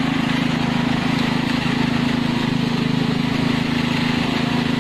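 A small engine running steadily, giving an even, low drone that does not change.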